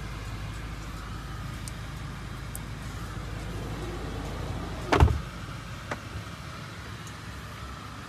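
Rear door of a Range Rover SV Autobiography LWB shutting with a single heavy thump about five seconds in, followed by a lighter click about a second later. Before the thump a steady low rumble comes in through the open door, and it drops once the door is shut.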